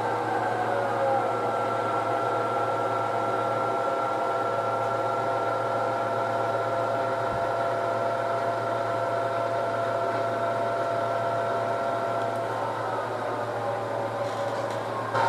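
A pair of HO scale model diesel locomotives running along the layout track: a steady hum with a few even-pitched tones, easing a little near the end.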